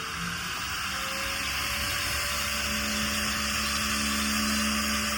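Electric car polisher (buffer) running on a painted body-kit panel, its motor speeding up over the first second with a rising whine and then running steadily.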